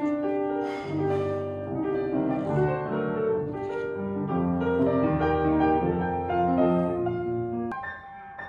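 Petrof piano being played: held chords with a melody over them in the middle register, broken off by a sudden cut near the end into a quieter, higher passage.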